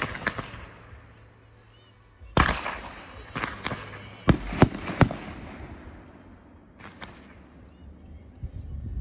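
Fireworks display: volleys of gold comets launched in crossing pairs, heard as sharp bangs, each trailing off in a hiss. A loud one comes about two and a half seconds in, a quick cluster between four and five seconds, and two more near the end.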